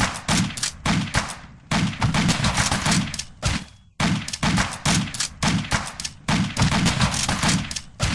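Bursts of rapid gunfire, several shots a second, in sections that start and stop abruptly.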